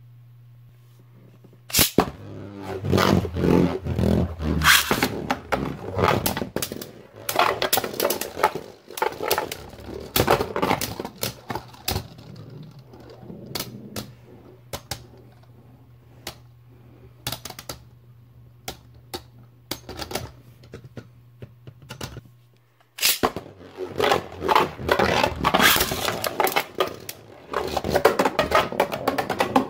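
Two Beyblade Burst spinning tops clattering in a plastic stadium. A sharp clack about two seconds in is followed by bursts of rapid clacking and scraping as the tops collide and circle the bowl. After a short lull about three quarters of the way through, a second sharp clack starts a new round of clashing.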